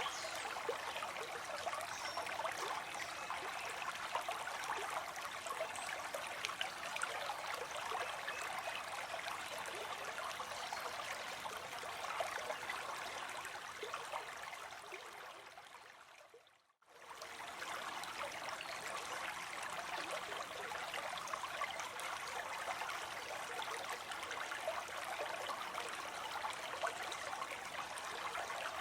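Running water, a steady rushing and trickling flow. Halfway through it fades out to silence and fades straight back in.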